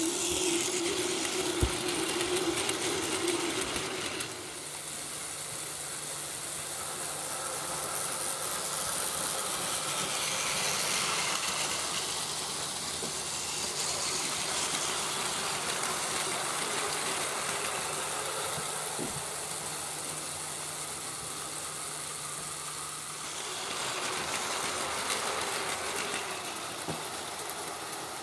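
Plarail battery-powered toy trains running on plastic track: a steady motor whir with the wheels running on the rails. It is louder for the first few seconds as a train passes close, and swells again near the end as the 323 series passes along the elevated track.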